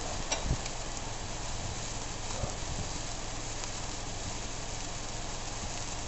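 Handheld 'witch wand' stick firework burning with a steady hiss, a few sharp crackles about half a second in.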